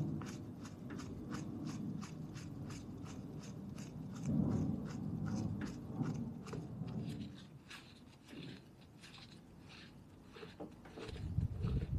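Light, rapid clicking, about four or five a second, from the bearing-retaining collar being twisted by hand onto the moped's front wheel hub over freshly greased loose ball bearings. The clicking thins out in the second half. Two low, muffled rumbles of handling come about four seconds in and again near the end.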